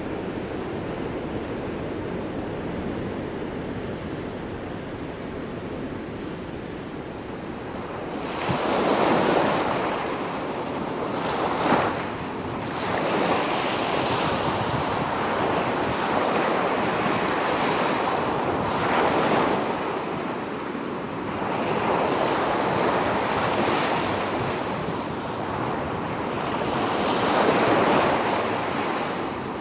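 Ocean surf, waves breaking and washing in, the wash swelling and fading every few seconds; it grows louder and brighter about seven seconds in.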